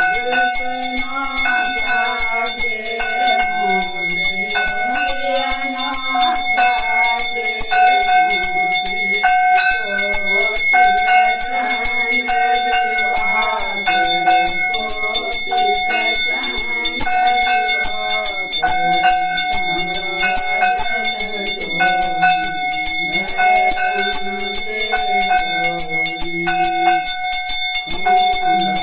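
Brass puja hand bell rung continuously for the aarti, with a devotional aarti song and a tone that recurs about once a second.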